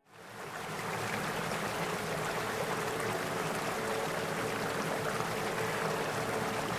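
Flowing river water rushing over stones, a steady rush that fades in over the first second.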